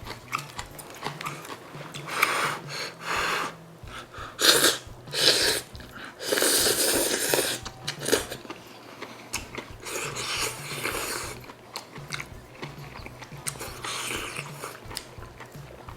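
A person eating gamjatang (pork bone stew) close to the microphone: chewing and biting mouth noises in irregular bursts, the loudest and longest between about two and eight seconds in.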